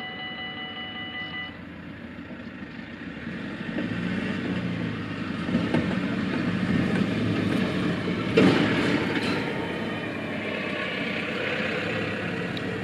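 Electronic level-crossing bells ringing steadily, cutting off about a second and a half in as the barriers reach the top. A truck then drives up and across the crossing, its engine and tyres growing louder, with one sharp thud about eight seconds in.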